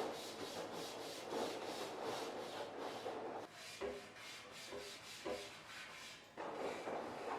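Repeated rubbing strokes, a few a second, that pause for a few seconds in the middle, where three short knocks sound.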